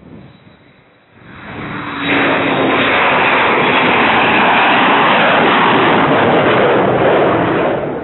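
Fighter jet passing low overhead, its engines loud. The noise swells about a second in, holds steady at full strength, and eases slightly near the end.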